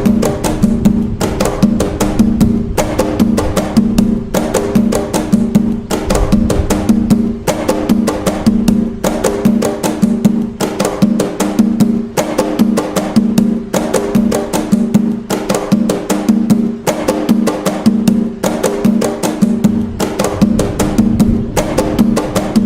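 Atabaque hand drums playing the toque nagô rhythm without a break: a fast, steady, repeating stream of strikes with a ringing, pitched drum tone.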